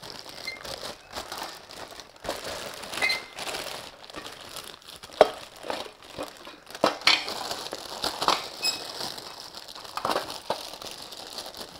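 Packaging being handled and unpacked: irregular crinkling and rustling, with scattered light clicks and knocks and one sharp click about five seconds in.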